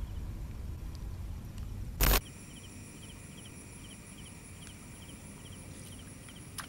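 Night insects calling: a steady high-pitched trill with short chirps repeating about twice a second. A low rumble of handling noise fills the first two seconds and ends in a loud brief knock.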